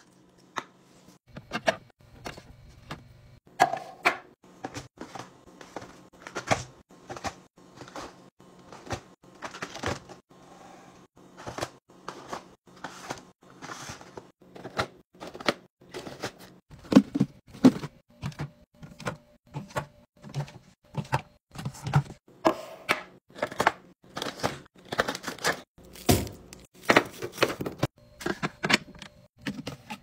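Plastic snack packaging and containers tapping and clacking as they are handled and set into clear plastic organizer bins: an irregular string of sharp taps and clicks, one or two a second.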